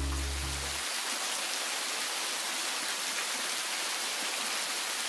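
Steady rush of falling water, like a waterfall, even and unbroken, with the last of a piece of music fading out in the first second.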